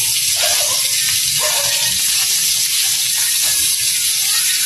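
Margarine sizzling steadily as it melts in a hot wok over a gas flame.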